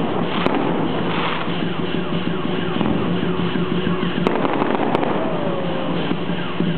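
Fireworks going off: dense, continuous crackling broken by a few sharp bangs, with a short falling whistle about five seconds in, over a steady low hum.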